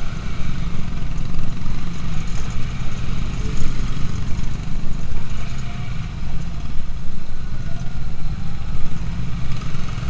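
Motorcycle engine running while riding slowly, a steady low rumble with wind buffeting on the microphone.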